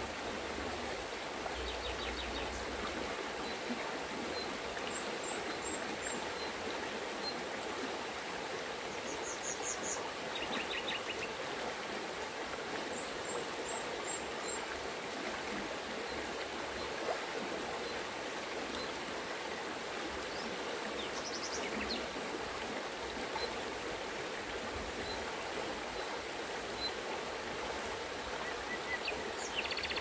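A shallow, fast mountain river running over stones and pebbles, giving a steady rushing and babbling.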